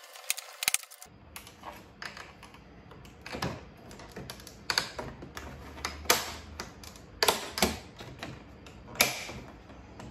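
Plastic retaining clips of a Range Rover Sport's side fender vent clicking and snapping as the vent is pried out with a plastic trim tool: a string of sharp, irregular clicks.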